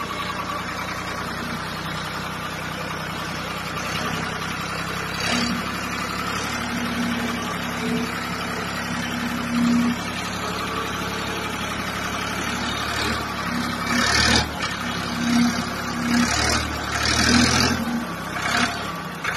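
A motor vehicle engine running steadily, with a higher hum coming and going over it from about five seconds in and a few louder, rougher surges near the end.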